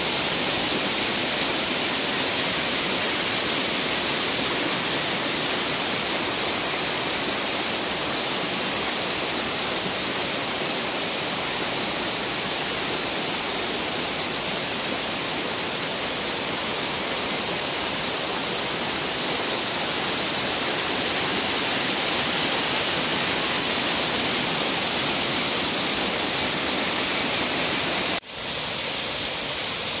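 A steady, loud rush of falling water from a waterfall. The sound breaks off briefly about 28 seconds in, then goes on a little quieter.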